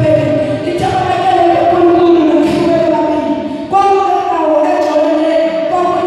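A boy singing into a handheld microphone in long held notes that slide from pitch to pitch, with a short break for breath about two-thirds of the way through.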